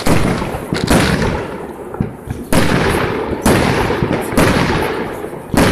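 Aerial firework shells bursting overhead: about six loud bangs roughly a second apart, each dying away over about a second before the next.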